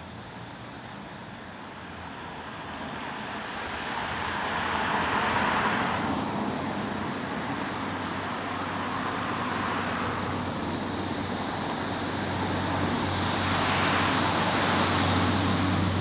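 Class 156 diesel multiple unit running along the platform, growing louder as it draws near and passes close by. Its rumble swells twice, and a low, steady engine hum builds through the second half.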